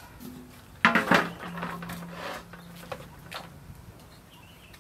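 Large aluminium basin set down on a wooden table with a clank about a second in, ringing briefly, followed by a few lighter knocks of handling.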